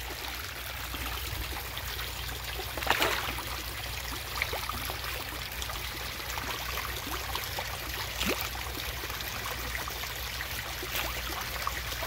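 Garden pond fountain running steadily, water splashing and trickling into the koi pond, with a few brief sharp sounds at the surface.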